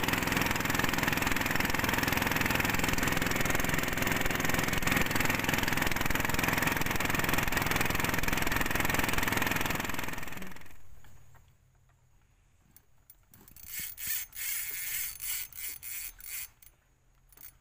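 Boat engine running steadily while the boat is under way, cutting off abruptly about ten seconds in. A quiet stretch follows, then a run of sharp clicks and knocks near the end.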